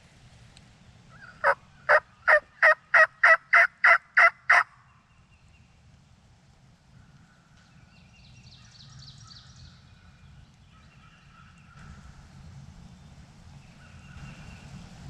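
A hand-operated turkey call run in a series of about ten sharp, evenly spaced yelps over three seconds, a locator sequence meant to draw a gobble. About four seconds later comes a faint, distant gobbler's answer.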